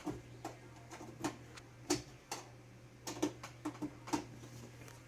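About a dozen sharp, irregularly spaced plastic clicks of computer keyboard keys and mouse buttons being pressed, over a faint steady low hum. The keyboard and mouse are not responding because drivers are missing.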